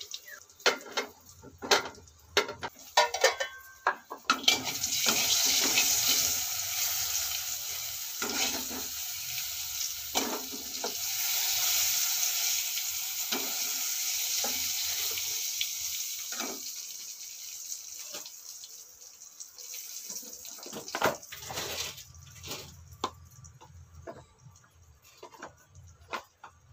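Metal spoon clinking and scraping against a steel kadai on a gas stove, then a steady sizzle of frying in the pan starting about four seconds in and slowly dying away over the next fifteen seconds, with more clinks and knocks near the end.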